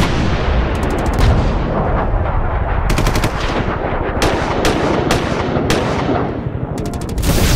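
Sound effect of sustained automatic gunfire, with clusters of rapid shots standing out several times over a dense, loud bed of firing.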